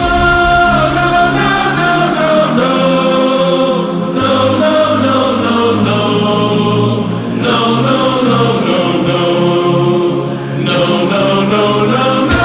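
Music with held, choir-like voices over a steady backing, dipping briefly about four and ten seconds in.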